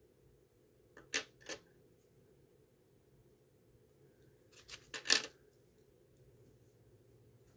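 Light metallic clicks from small watchmaker's tools being handled: three quick clicks about a second in, then a short cluster of clicks around five seconds in, over a faint steady hum.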